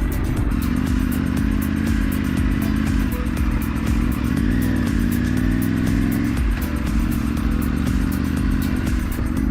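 Triumph Tiger 900 Rally's inline three-cylinder engine running steadily on the move, with road and wind noise. The engine note dips and comes back up about four to five seconds in.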